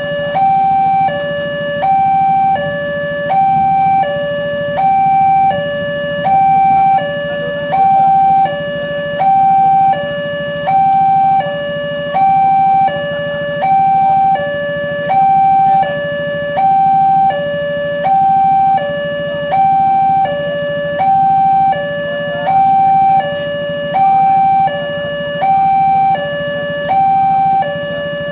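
Railway level-crossing warning alarm sounding a repeating two-tone signal, high then low, about one full cycle every 1.3 seconds. A steady low hum runs underneath.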